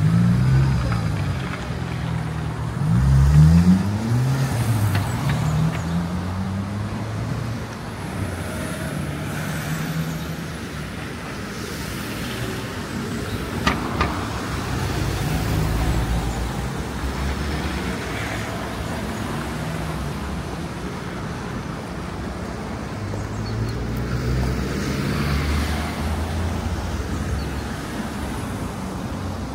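City street traffic: motor vehicle engines running and passing, with one vehicle accelerating on a rising engine note about three seconds in. A single short sharp knock comes about halfway through.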